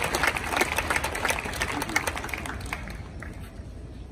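Stadium crowd applauding a won point in a tennis match: many hands clapping, thinning out and dying away about three seconds in.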